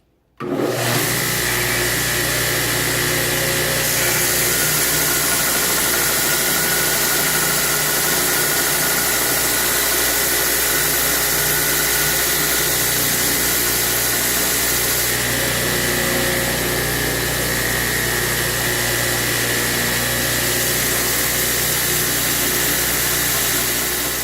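A 2x72 belt grinder with a 60-grit belt, grinding the flat face of a Damascus steel billet: a steady, loud hiss of steel on abrasive over the machine's hum. It starts abruptly about half a second in and winds down at the very end.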